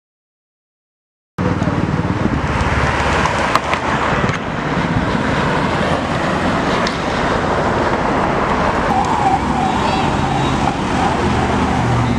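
Silence for about a second and a half, then a sudden cut to loud street traffic: car engines running and tyre noise as cars drive past. A wavering tone, like a siren or horn, rises over the traffic about nine seconds in.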